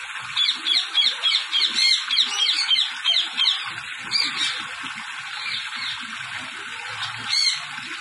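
Parakeets squawking: a rapid run of sharp, harsh calls, about three a second, for the first few seconds, then a few single calls later. Under them runs the steady hiss of a hose spraying water into their wire cage.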